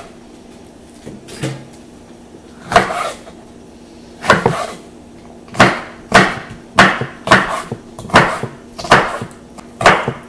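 Chef's knife cutting a jalapeño on a wooden cutting board: a few slow, separate cuts, then from about halfway a steady chopping of about two knocks a second.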